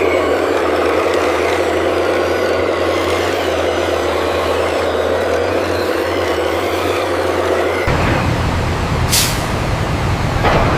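Heavy truck or construction-machine engine running steadily. Its low hum changes about eight seconds in, and short air-brake hisses come about nine and ten and a half seconds in.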